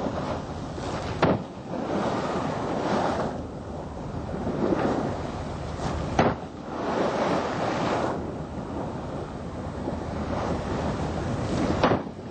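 Sea water surging and splashing, with wind buffeting the microphone and three sharp knocks about five seconds apart.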